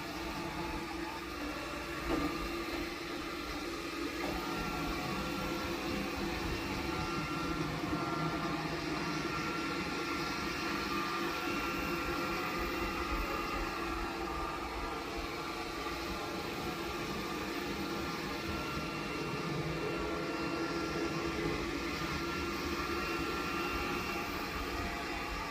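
Cuckoo all-in-one robot vacuum docking station running steadily after the robot has docked, a constant motor hum with a faint whine, with a small knock about two seconds in.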